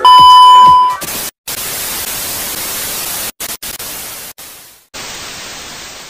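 A loud, steady test-tone beep lasting about a second, then television static hiss that cuts out briefly several times and fades away near the end.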